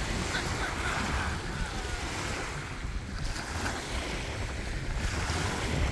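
Small waves washing up onto a sandy shore, one wash swelling about half a second in and another near the end, with wind rumbling on the microphone throughout.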